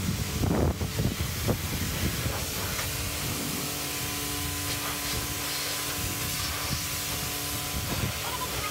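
Pressure washer spraying water onto a car's foamed bodywork: a steady hiss, with a few knocks in the first second and a half. A faint steady hum joins about three seconds in.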